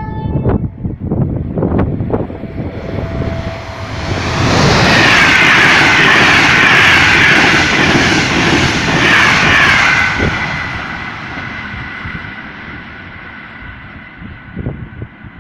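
Intercity train hauled by an FS E.403 electric locomotive passing through at speed: the rush of wheels on rail builds about four seconds in and is loudest until about ten seconds in as the coaches go by. It then fades as the train draws away, leaving two steady high tones.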